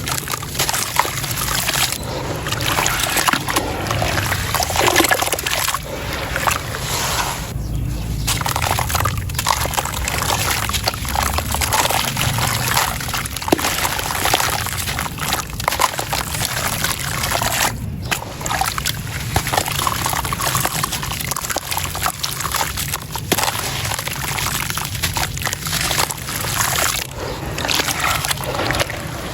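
Gritty sand-and-stone chunks crumbling into a bowl of water: dense, crackly crunching and crumbling with sloshing and trickling water, broken by two short pauses.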